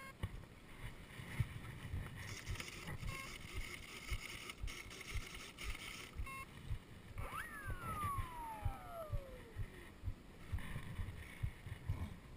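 Heartbeat picked up through a chest-mounted action camera as a fast, regular low thump, the pulse raised by adrenaline. About seven seconds in, the RC jet's electric motor whines up sharply and spins down over a couple of seconds.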